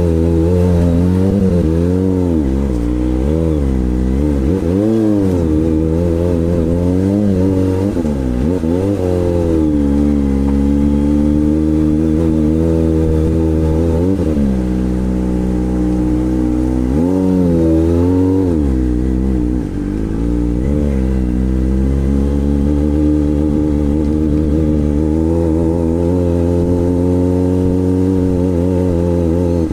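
Kawasaki ZX-25R's 249 cc inline-four engine running, its revs rising and falling again and again, then holding fairly steady for the last third.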